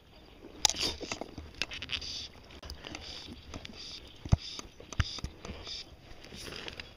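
Close rustling and scattered sharp knocks and clicks from an angler's sleeve, hands and fly-fishing gear moving right by the microphone, as a hooked bass is played in. The sounds begin suddenly about half a second in, with two louder knocks past the middle.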